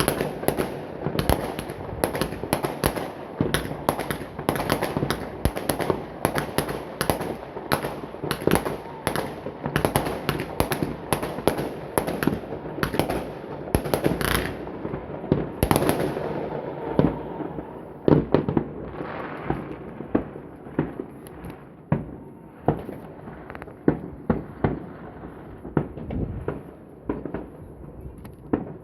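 Many fireworks going off at once: rapid, overlapping bangs and crackling that thin out after about sixteen seconds into scattered, quieter pops and bangs.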